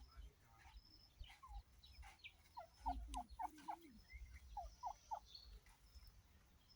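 Faint turkey calls: a quick run of about five short rising notes a few seconds in, then three more about two seconds later, with lower calls alongside the first run.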